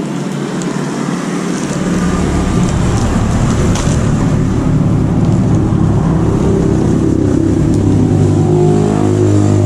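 Road traffic: a motor vehicle's engine running loudly close by, growing louder about two seconds in and staying loud, with a few faint rustling clicks from the package being opened.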